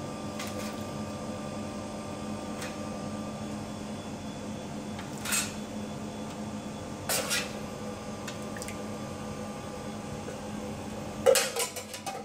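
Metal ladle knocking and scraping against a stainless steel pan and aluminium foil ramekins as batter is ladled out: a few light knocks spread apart, then a quicker, louder run of clatter near the end. A steady hum runs underneath.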